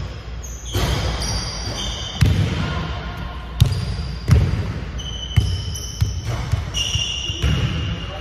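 Basketballs bouncing on a hardwood gym floor in irregular thumps, overlapped by short high squeaks from sneakers on the court.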